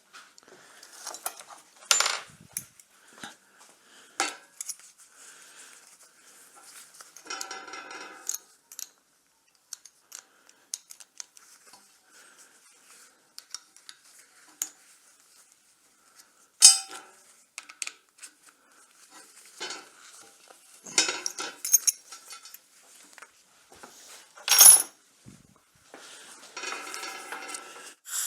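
Scattered sharp metal clinks and taps against a cast iron door grid being brazed, with a couple of short scraping stretches between them.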